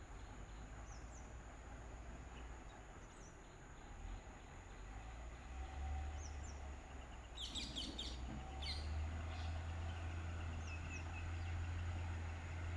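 Outdoor bird calls: scattered short high chirps, with a quick burst of rapid chirping about seven and a half seconds in and another a second later. Under them is a steady low rumble that grows louder toward the end.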